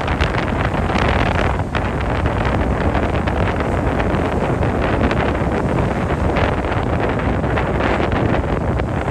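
Wind buffeting the microphone, loud and steady, with a low rumble underneath.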